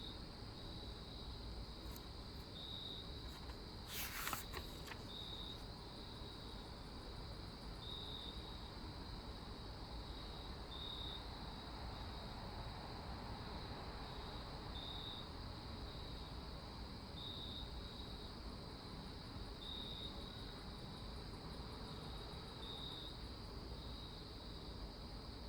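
Cricket ambience: short high chirps every two to three seconds over a steady hiss, with a brief scratchy noise about four seconds in.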